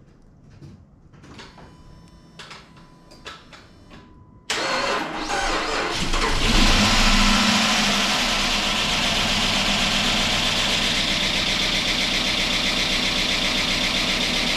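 First start of a 2005 Chrysler 300C's freshly repaired 5.7 HEMI V8 after a few faint clicks: about four and a half seconds in it cranks and catches, flares up loudly, then settles into a steady idle. The lifters tap, starved of oil after the rebuild.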